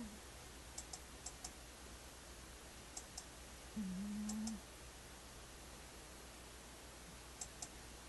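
Sleeping tabby cat making a short, steady low hum-like sound on a breath, which the owner calls snoring or perhaps purring in its sleep. It ends just after the start and comes again about four seconds in, each lasting under a second. Faint sharp clicks come in pairs a few times.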